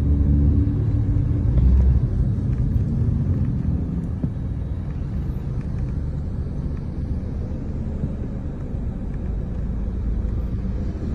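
Road traffic heard from a moving taxi: car engines and a steady low road rumble. A deeper engine drone is loudest for the first two seconds, then fades into the even rumble.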